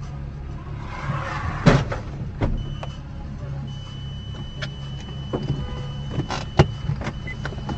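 Low engine and road drone inside a car, broken about 1.7 seconds in by a loud thud as a motorcyclist hits the front of the car, with a second knock just after. A thin, steady, high-pitched beep then sounds on and off for most of the rest, with a few more clicks.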